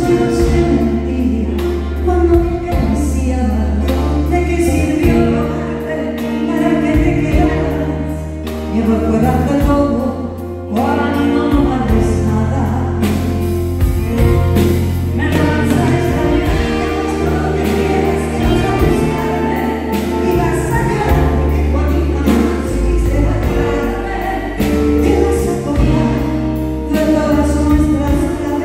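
A woman singing a ballad live into a handheld microphone with a full band (drums, bass, keyboards and guitar) playing behind her, amplified through the theatre's PA.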